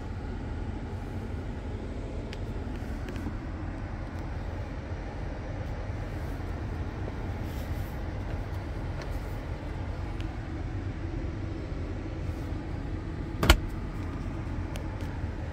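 Steady low rumble inside the cabin of a parked 2021 Chevrolet Suburban, its systems powered up with the climate controls on. About 13.5 seconds in there is a single sharp click.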